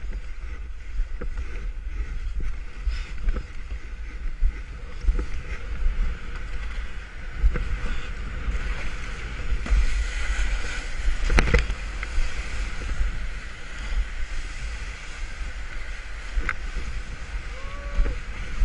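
Water rushing and splashing around a stand-up paddleboard on ocean waves, with wind buffeting the microphone and one sharp louder hit a little past the middle.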